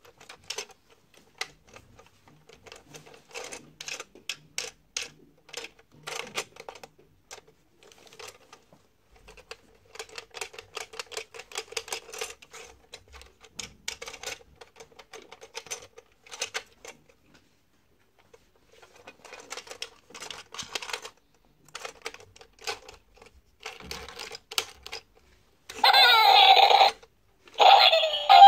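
Hard plastic toy being handled and turned over: a long run of small clicks and rattles. Near the end, the toy's electronic tune starts up loud from its little speaker, cuts out for a moment and starts again.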